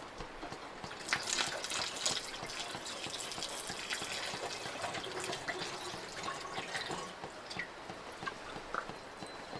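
Rainwater being poured from a bucket into a Rotopax water container, splashing and trickling in. The pour gets louder about a second in and tapers off near the end, with drips around it.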